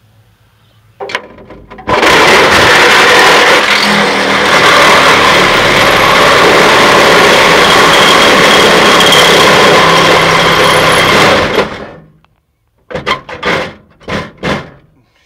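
Power tool cutting through several layers of car-body sheet metal: loud and steady for about ten seconds, then stopping, followed by a few short bursts near the end as the cut is carried on.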